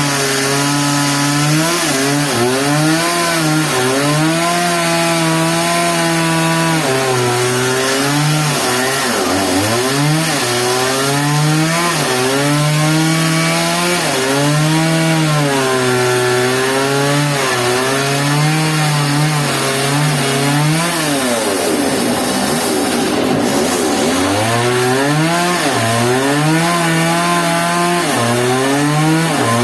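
Sawmill saw cutting suar wood, its engine running loud and steady under the noise of the cut, the pitch sagging and recovering again and again as the blade takes load.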